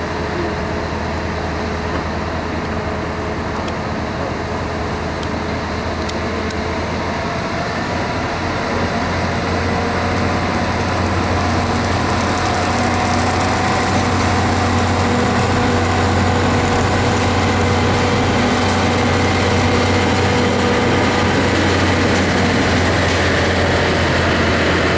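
Mount Washington Cog Railway diesel locomotive running steadily as it pushes its passenger coach along the cog track, its engine drone growing louder as it nears.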